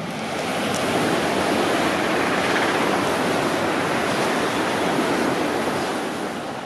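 Red regional push-pull passenger train with its cab car leading, rolling past close by at speed: a steady rush of wheel-on-rail and air noise that builds over the first second and starts to ease near the end.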